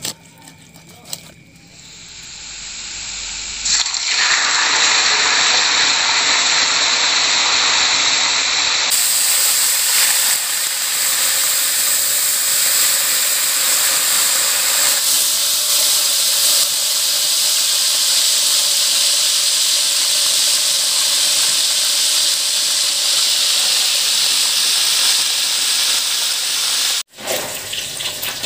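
Pieces of snakehead fish deep-frying in hot oil in a wok, a steady sizzle that builds over the first few seconds and stops abruptly near the end.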